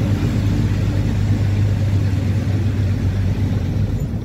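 Heavily loaded Mahindra truck's diesel engine pulling steadily uphill, heard from inside the cab as a continuous low drone.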